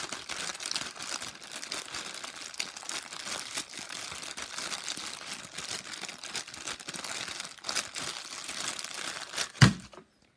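Plastic bag crinkling steadily as a Rubik's cube is turned through it. Near the end there is a single loud knock, then the crinkling stops.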